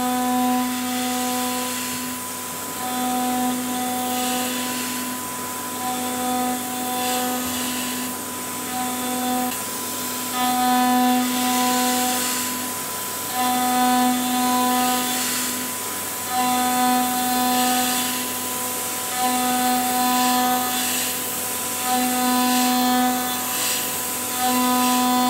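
Multicam 3000 CNC router spindle milling an aluminium block with a 6 mm end mill on a back-and-forth 3D surfacing pass: a steady hiss with a pitched singing tone that comes and goes every second or two as the cutter bites into the surface on each pass.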